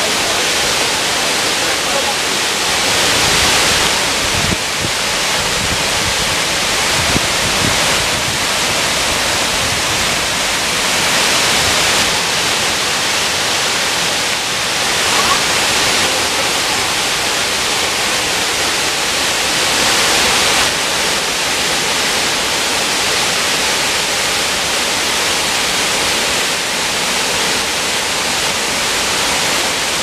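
Shiraito Falls, many thin curtains of water pouring down a rock cliff into a pool, making a steady, loud rush of falling water.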